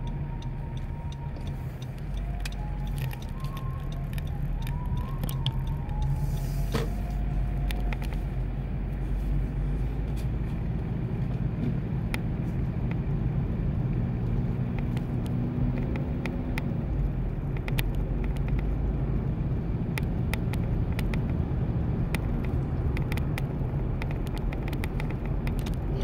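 Steady low road and engine rumble heard from inside a moving car, growing fuller about two seconds in as the car pulls away from a stop.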